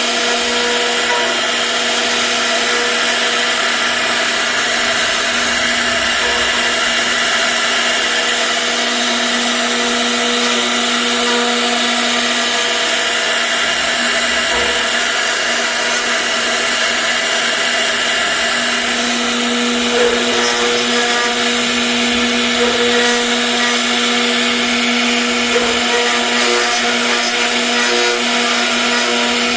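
CNC router spindle running steadily while its bit carves wood, a constant high whine over dense cutting noise.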